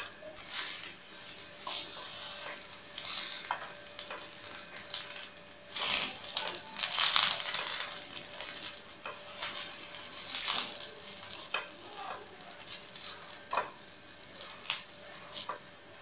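Eggplant slices sizzling in hot oil in a non-stick frying pan, with short scrapes and taps of a silicone spatula against the pan as the slices are turned. The sizzle swells louder a few times as slices are moved.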